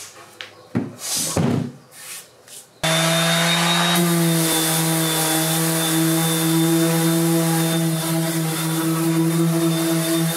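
A few soft rustles and knocks, then about three seconds in a random orbital sander starts up suddenly and runs steadily with a constant motor hum and a gritty hiss, sanding a cured epoxy resin surface.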